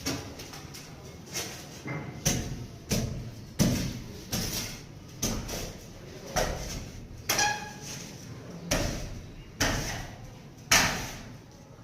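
Repeated knocks and bangs of construction work, irregular, roughly one a second, one of them with a brief metallic ring about seven seconds in.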